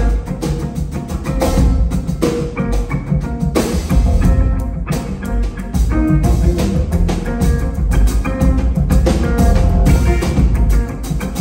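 Live jazz quartet playing: grand piano, upright double bass, guitar and drum kit together at a steady, busy pace, heard from the audience in a concert hall.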